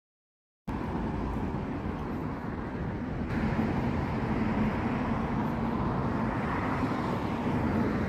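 Street traffic noise, motor vehicles running on a city road: a steady rumble with an engine hum that grows louder about three seconds in. The sound drops out completely for the first half-second.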